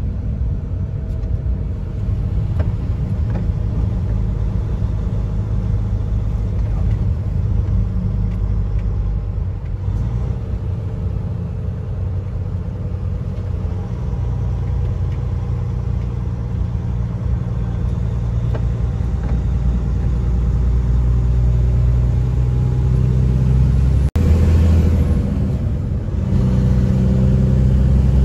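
Road train's truck engine running steadily at highway speed, heard from inside the cab, with a low road rumble from the tyres on the wet bitumen. The engine drone gets somewhat louder in the last several seconds.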